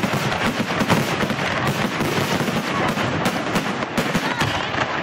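Aerial fireworks going off in a dense, rapid barrage: many sharp bangs and crackles overlapping, with no pause between them.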